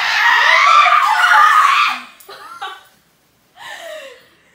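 A young woman screaming loudly for about two seconds in play-acted labour, then breaking off into short giggles.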